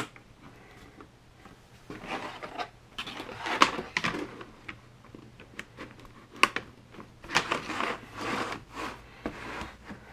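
Plastic Scalextric slot-car track pieces being slid over a board and pushed together, with scattered clicks and knocks as the joints and borders fit and rubbing between them; the sharpest clicks come about three and a half and six and a half seconds in.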